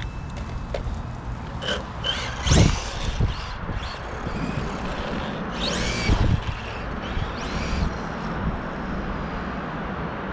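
Electric RC truck, a Losi XXX-NT converted from nitro to electric power, being driven, its motor whining up and then down in pitch several times as it speeds up and slows, over a steady rumble of tyres on the ground. A sharp knock sounds about two and a half seconds in.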